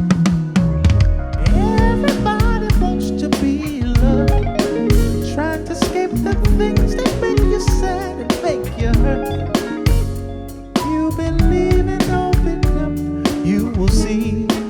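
Live band playing: drum kit, bass, electric guitar and keyboards, with a bending melodic lead line over a steady beat. The music dips briefly about ten seconds in, then comes back in full.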